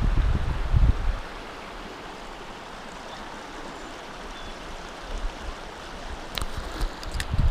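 Steady rushing of a stream or waterfall. Wind buffets the microphone for about the first second, and a few sharp clicks sound near the end.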